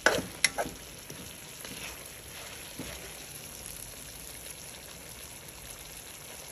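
Chicken pieces cooking in a shallow pool of liquid in a metal pot, a steady low sizzle and simmer. In the first second a few sharp knocks and scrapes, as a spatula taps and scrapes against the pot.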